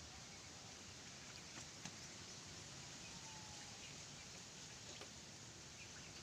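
Near silence: faint steady outdoor hiss with a few faint ticks.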